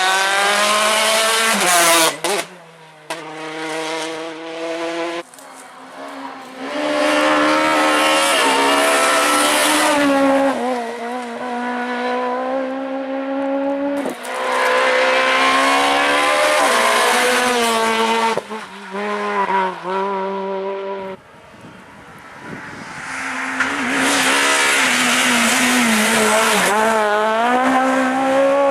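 Rally cars driven hard in a run of short clips: engines revving up through the gears, dropping back on lift-offs and shifts, then climbing again. The sound changes abruptly from one car to the next several times.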